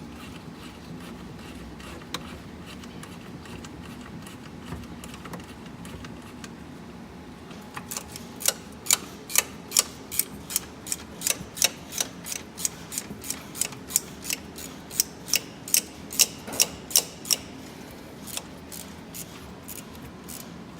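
Ratchet wrench clicking while the 12 V battery's hold-down bolt is undone: a quick, regular run of sharp clicks, about two or three a second, starting about eight seconds in and stopping shortly before the end.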